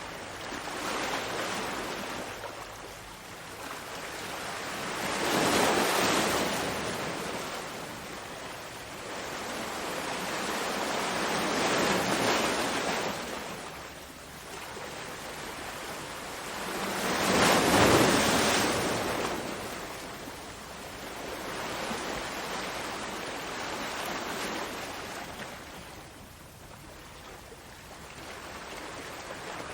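Ocean waves washing in, a hiss of surf that swells and fades about every five or six seconds, the biggest surge about two-thirds of the way through.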